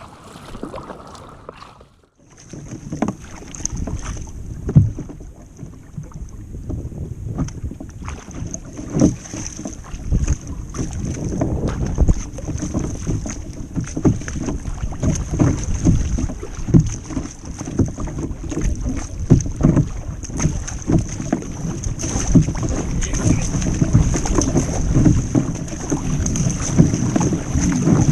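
Water splashing and sloshing against a kayak hull at sea, with wind buffeting the microphone. A steady high-pitched whine comes in about two seconds in and carries on under the water noise.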